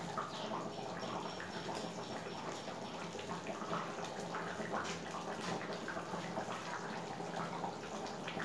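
Chicken curry gravy simmering in a wok, with a steady bubbling hiss and small ticks and plops as fried potatoes are set into the liquid by hand.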